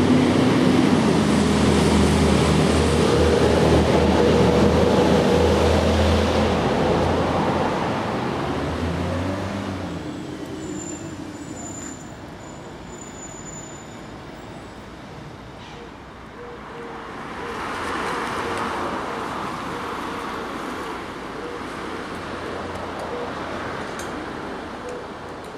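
Road traffic passing: a motor vehicle's engine loud at first, its pitch falling as it fades away after about eight seconds, then a second vehicle swelling past and fading around eighteen seconds in.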